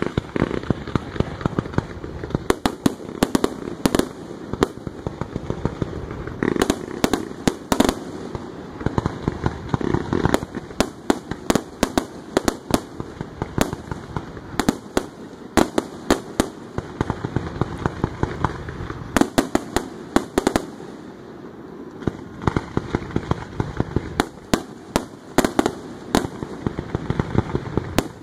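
Aerial firework shells bursting in rapid, overlapping bangs that come in dense clusters, over a continuous low rumble.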